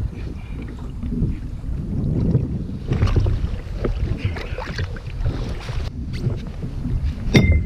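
Wind buffeting the microphone over open water, a steady low rumble, with faint water and paddle-and-hull sounds from the kayaks. Near the end a few sharp clicks and a short high tone come in.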